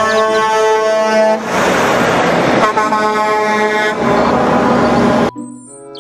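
Semi-truck's air horn sounding two long blasts over the loud running and road noise of the truck driving past. The sound cuts off abruptly about five seconds in.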